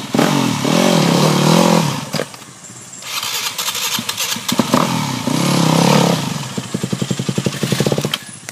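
Trail motorcycle engine revved in two bursts of about two seconds each, with a short drop between them. Near the end it settles to slow, evenly spaced firing pulses at low revs.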